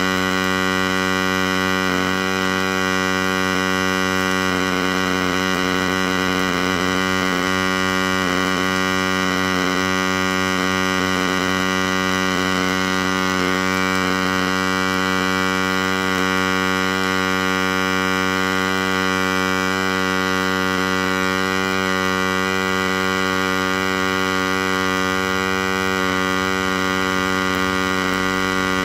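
MIG welding arc from a DIY CNC welding rig running a continuous weld, heard as a steady, even electrical humming buzz.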